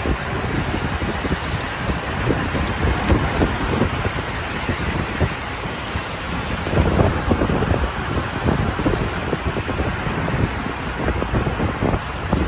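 Wind rushing over the microphone of a camera moving with a group of road cyclists: a steady rushing noise with uneven low gusts.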